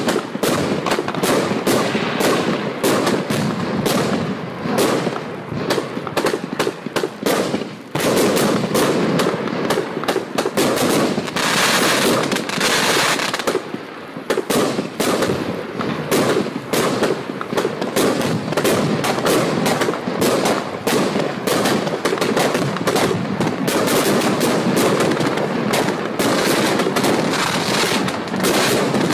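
Celtic Fireworks '10 Out of 10' 100-shot, 25 mm firework barrage cake firing: a fast, continuous run of shots, several a second, with a brief lull about halfway through.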